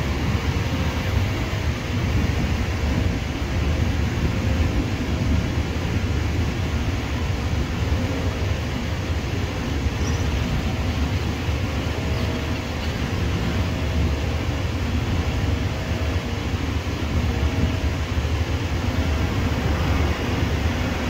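Steady low rumble of jet aircraft engines around an airport, with no rise or fall.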